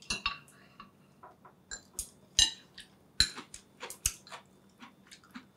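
Chopsticks and spoons clicking and clinking against ceramic bowls and plates while people eat, in irregular, scattered taps, the loudest a few sharp clinks about two and a half, three and four seconds in.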